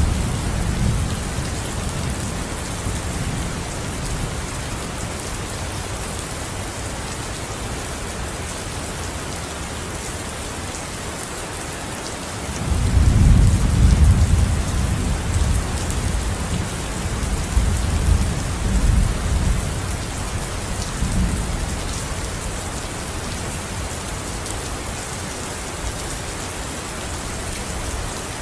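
Steady rain falling, with thunder rolling underneath. A low rumble dies away in the first few seconds, and a louder peal of thunder breaks about twelve and a half seconds in, rolling and swelling for several seconds before fading back to rain alone.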